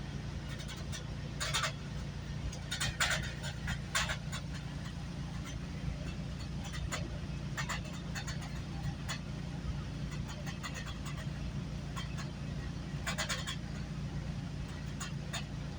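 GO Transit commuter train running steadily on the track, a continuous low rumble with short clicks and rattles now and then, several in a cluster a few seconds in and again near the end.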